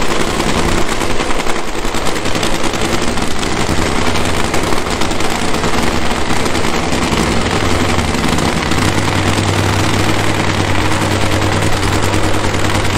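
Supercharged nitromethane-burning drag-racing V8 running with a loud, rapid, continuous crackle. A steady low drone strengthens about nine seconds in.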